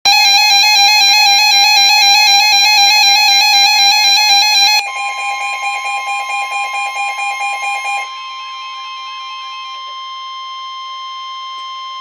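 Weather-alert receiver sounding a loud, rapidly warbling electronic alarm. About five seconds in, the NOAA Weather Radio 1050 Hz warning alert tone comes in as one steady tone. The warble fades out around eight seconds, leaving the steady alert tone sounding alone, the signal that a warning message follows.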